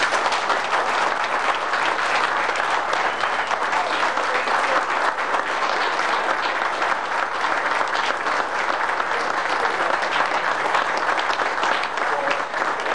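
A roomful of people applauding, starting suddenly and keeping up at a steady level.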